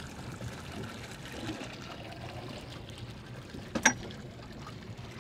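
Water trickling and lapping steadily around the boat, with one sharp click about four seconds in.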